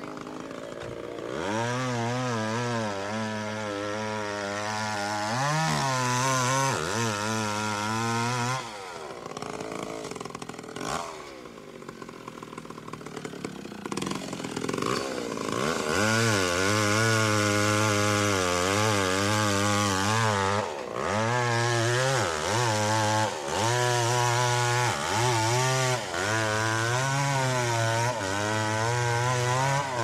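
Chainsaw engine running at speed, its pitch wavering. For several seconds in the middle it falls back lower and quieter, then it is run up again, dipping briefly over and over in the second half.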